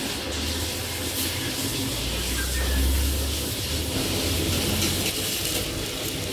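Battered prawn fritters deep-frying in a large wok of hot oil, a steady sizzle, under a low rumble that swells about two seconds in and dies away by about five seconds.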